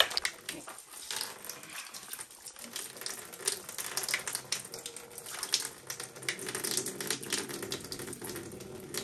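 Residual water splashing and trickling out of a supply pipe as its push-fit stop end is removed with the mains turned off, with scattered clicks and knocks from handling the fitting.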